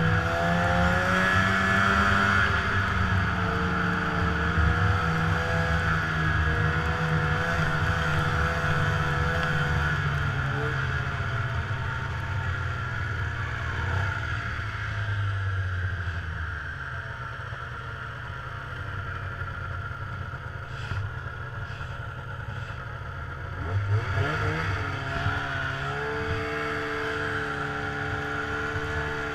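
Snowmobile engine running under way, heard from the rider's seat. It eases off about ten seconds in, runs lower and quieter for a while, then revs back up near the end.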